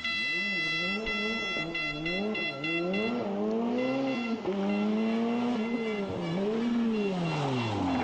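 Rally car engine revving hard and falling away again and again as the driver changes gear and lifts between corners. A steady high whine sits over it for the first three seconds or so.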